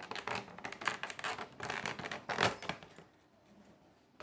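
Cardboard box and its plastic and styrofoam packing being handled and opened by hand: a run of scrapes, rustles and clicks, the loudest about two and a half seconds in, then quieter.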